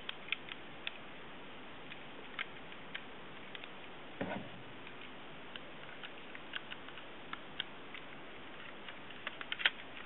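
Faint, irregular clicks and taps of Lego plastic as a brick-built Rubik's Cube is handled and its layers turned to line up the sides. There is a duller knock about four seconds in and a quick run of clicks near the end.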